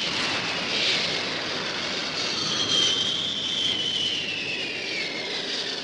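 Cartoon sound effect of a jet engine: a steady rushing roar with a high whine that falls slowly in pitch.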